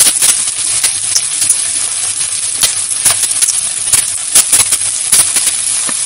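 Sliced onions and mustard seeds sizzling in oil in a steel kadhai, with a steel spoon scraping and clinking against the pan as they are stirred. The hiss is steady, broken by frequent sharp clicks.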